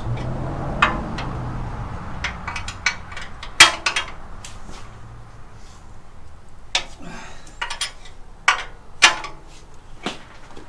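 Hand tools and steel bolts clinking and clanking against a steel cross member as its bolts are fitted and tightened: irregular sharp metallic knocks, the loudest about three and a half seconds in.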